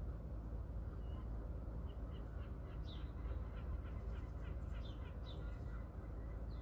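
Small birds chirping: a quick run of short high notes through the middle, with a few sharp downward-sliding calls, over a steady low rumble.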